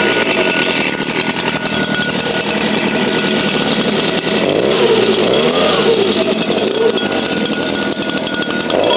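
STIHL handheld leaf blower's two-stroke engine running just after a cold start, with a fast, even firing buzz and its pitch wavering up and down around the middle.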